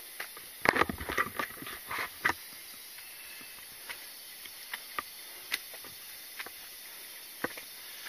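Footsteps on a rocky forest trail: a quick run of knocks and scuffs about a second in, then scattered single clicks. A steady high buzz of insects runs underneath.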